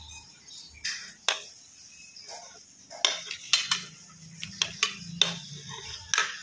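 Sharp metal clicks and clatter, about eight in all, as a stovetop sandwich maker is opened and handled to take out the cooked sandwich.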